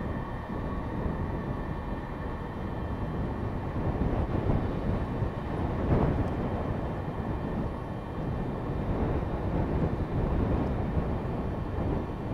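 Lockheed C-5A Galaxy's four General Electric TF39 turbofans at takeoff power as the aircraft lifts off and climbs away: a steady deep rumble with a high whine on top, swelling to its loudest about halfway through.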